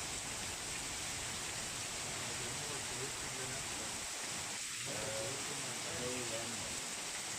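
Steady rushing noise of Tropical Storm Pabuk's wind and rain, with faint voices talking from about three seconds in.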